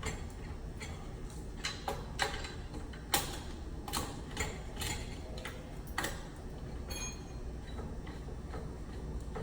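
Sharp metal clicks and taps at irregular intervals, a few every second and fading out after about six seconds, as an Allen wrench works the lug screws on a breaker's cable terminals, over a steady low hum.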